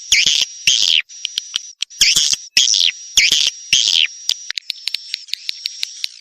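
Recorded edible-nest swiftlet calls: about six loud buzzy twittering chirps in the first four seconds, then a thin, high, steady trill dotted with rapid clicks. This is the kind of swiftlet call track played to draw swiftlets into a nesting house.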